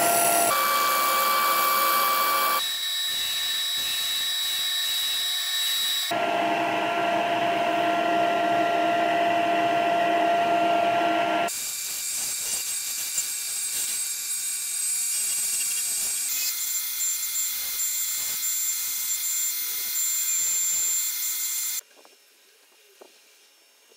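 Wood lathe running with a turning gouge cutting into a spinning camphor laurel bowl: a steady high whine over a hiss of cutting. The whine's pitch and the cutting noise change abruptly several times, and near the end the sound drops to faint.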